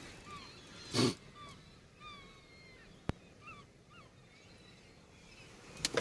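Seagulls calling around a harbour: many short, bending cries overlapping, with a louder harsh burst about a second in and another near the end, and a single sharp click near the middle.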